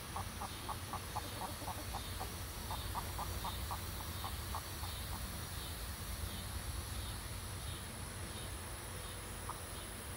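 An animal's rapid series of short, clipped calls, about four to five a second, for the first five seconds, with a single call near the end, over a steady high insect buzz.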